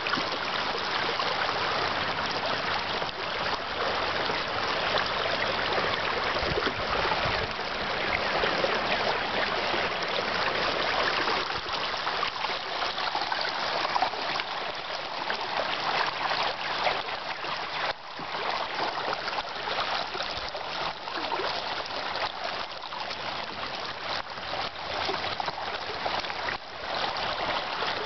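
Shallow river water babbling over a rocky riffle: a steady rush of running water with fine splashy trickles.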